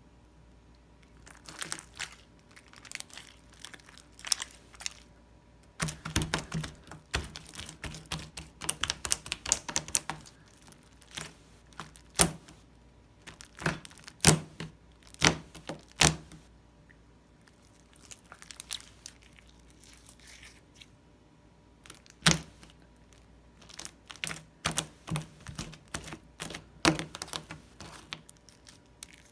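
A failed slime being handled by hand, giving irregular clusters of crackling, popping and tearing sounds with a few louder sharp pops.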